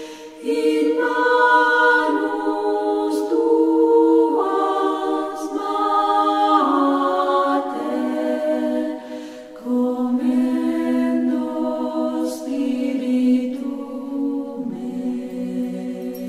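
A choir singing slowly, voices alone, in long held notes that move together in steps, with brief breaks between phrases.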